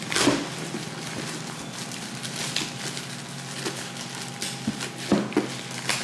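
Package being handled and opened: scattered taps and scrapes of cardboard and packaging, over a steady low hum.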